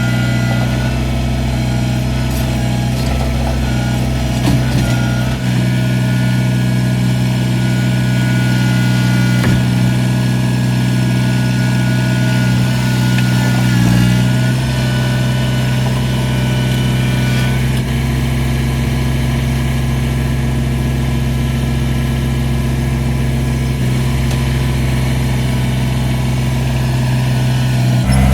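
Tractor engine running steadily at a constant speed while pulling a chained log up onto a ramp.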